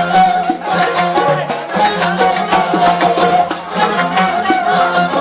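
Music with a steady beat: sustained instrument tones over a regular percussion pattern.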